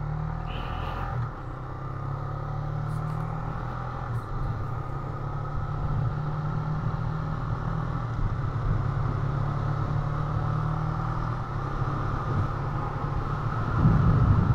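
Motorcycle engine running steadily while riding, a low even hum that swells briefly near the end.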